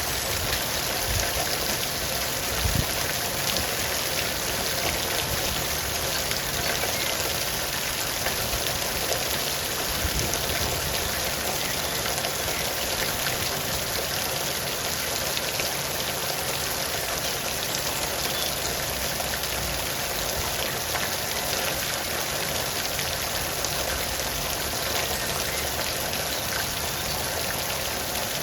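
Steady rain falling, a continuous hiss of many small drop impacts with an occasional louder drip.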